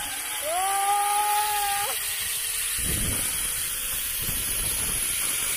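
Zip-line trolley running along the steel cable: a steady high hiss, with a whine that rises and holds for about a second and a half near the start.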